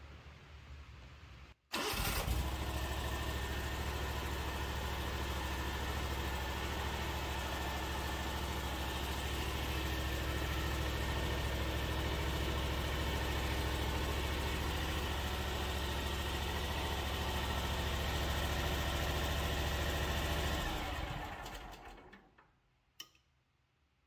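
Hustler Fastrak SDX60 zero-turn mower's engine starting about two seconds in and running steadily, then switched off near the end and dying away over a second or two. It starts now that the damaged wiring to the parking-brake safety switches has been repaired, curing the no-start fault.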